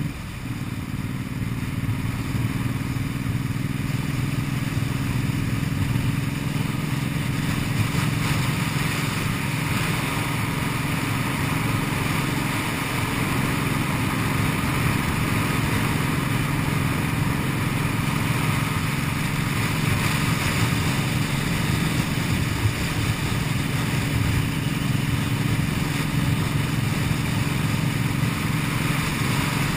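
Cruiser motorcycle engine running at a steady pace on the move, with a brief dip in level just after the start.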